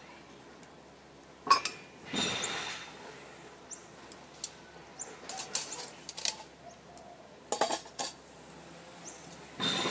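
Metal tongs clinking and scraping against a mess tin and its lid as the lid is lifted off the pot on the coals. A sharp clink about a second and a half in, then scattered lighter clinks, with a quick run of them near the end.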